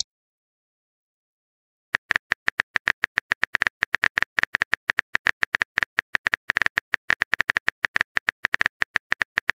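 Phone keyboard typing sound effect: a quick, steady run of sharp key clicks, starting about two seconds in after a short silence.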